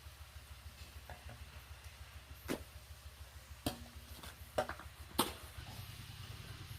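A small engine running steadily at low speed, a little louder near the end, with four sharp knocks spaced about a second apart in the middle.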